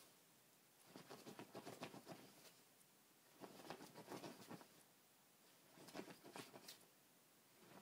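A small dog's paws scratching and rustling at a fabric pillow and bedding in three faint bursts of a second or so each, with short pauses between.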